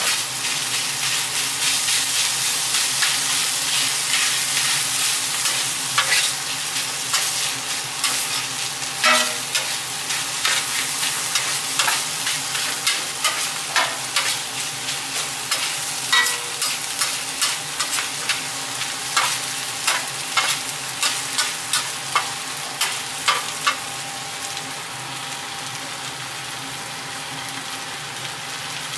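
Philly cheesesteak filling of sliced beef, onions and green peppers sizzling on a flat-top griddle, while a metal spatula scrapes and clacks against the steel, turning and chopping the meat. The clacks come in a quick run through the middle and stop near the end, leaving a quieter, steady sizzle.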